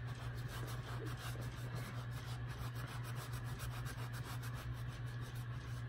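Wet magic eraser (melamine foam) scrubbing back and forth over a sneaker's sole, a quick, steady run of rubbing strokes.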